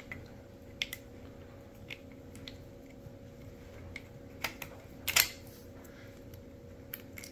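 Scattered small clicks and taps of a screw, washers and a lock knob being handled and fitted by hand into a shooting rest's tension-lock assembly, with a sharper click about five seconds in.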